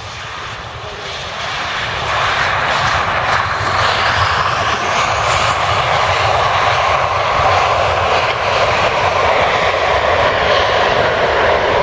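An Airbus A320-family airliner's jet engines roaring as it rolls out after touchdown, typical of reverse thrust. The roar builds over the first two seconds and then holds loud and steady, with a whine rising in pitch in it.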